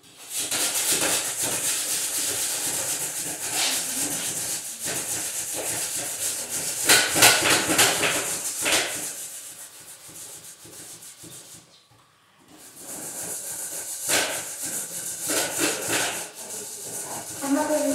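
Raw potatoes being grated by hand on a grater: rapid, continuous rasping strokes, with a short pause about two-thirds of the way through before the grating resumes.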